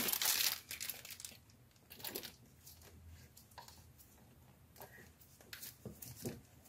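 Clear plastic wrapping on an oil cooler hose end crinkling as it is handled, loudest in the first second, then a few light rustles and taps from handling the hose against the fittings.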